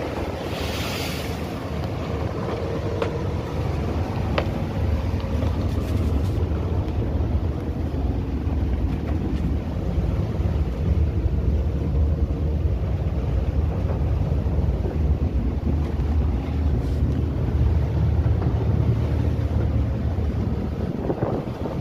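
Boat engine running steadily under way at sea, with strong wind buffeting the microphone.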